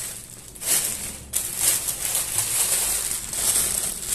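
Black plastic courier mailer bag being pulled open and crumpled by hand, with crinkling and rustling plastic. It is quieter for about the first second, then crinkles continuously.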